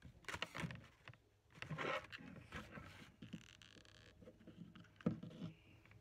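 Cardboard packaging rustling and scraping as it is handled, with small knocks of tools on a table, and one louder knock about five seconds in.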